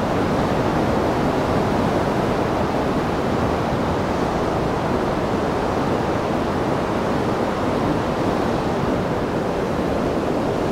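The flood-swollen New River rushing past: a steady, unbroken wash of high water.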